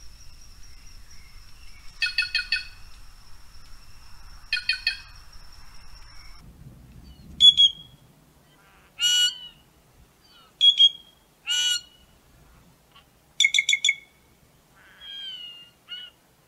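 White-naped jay (gralha-cancã, Cyanocorax cyanopogon) calling. It gives two short bursts of rapid repeated notes over a thin steady high tone, then a string of separate clear calls, a quick rattling series and a brief gliding note.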